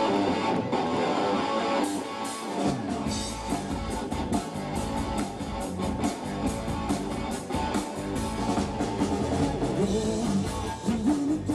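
Live rock band. An electric guitar plays alone at first, then about two seconds in the drums and bass come in and the full band plays on together.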